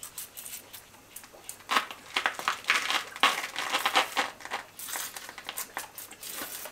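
Hand-pump pressure sprayer squirting water onto the joints of a stone wall in a run of short, irregular bursts, starting a little under two seconds in.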